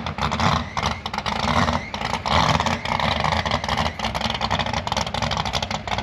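A vehicle engine running loud and hard, with a fast, rough pulsing.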